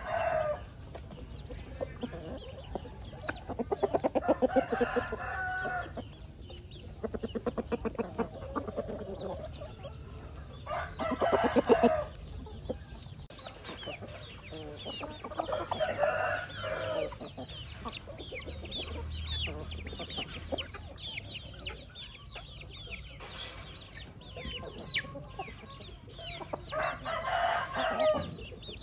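Domestic chickens calling: roosters crow several times, each call lasting a second or two, with rapid clucking and cackling between the crows.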